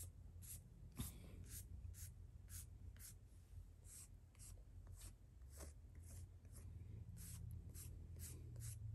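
Faint, even brushing strokes of a toothbrush's bristles drawn through a reborn doll's short hair, about two strokes a second.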